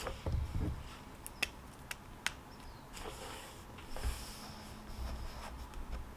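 Desk handling sounds while studying: a few soft low thumps, then several sharp clicks and brief paper-like rustles, as of a pen and pages being handled. Faint high bird chirps sound in the background.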